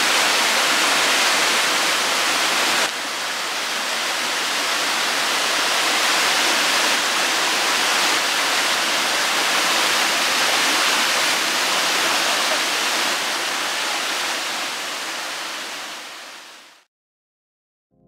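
Rushing water of a tall cascading waterfall pouring over rocks into a pool, a steady dense hiss. It drops a little in level about three seconds in and fades out about a second before the end.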